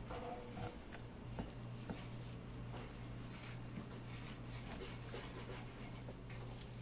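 Knife slicing through roasted beef sirloin on a plastic cutting board: soft, irregular clicks and taps of the blade and the meat against the board, over a steady low hum.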